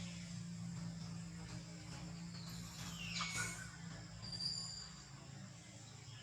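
Insects droning steadily in a high, even tone. About three seconds in there is a brief high call falling in pitch, and a second later a couple of short high chirps.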